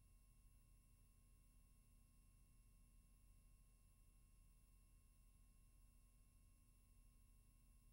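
Near silence: only a faint, steady low hum and hiss with a few thin constant tones, and no other sound.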